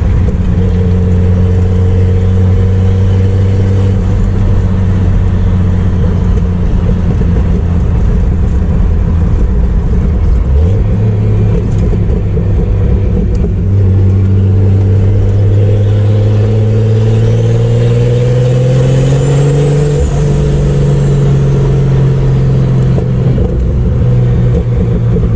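Turbocharged Chevrolet Opala inline-six engine pulling the car along on the road. Its note is steady, steps up about ten seconds in, then climbs slowly through the middle before levelling off. A faint high whine rises and falls as the engine note peaks.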